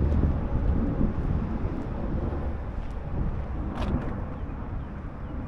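Outdoor background rumble, low and steady, slowly fading, with one faint click about four seconds in.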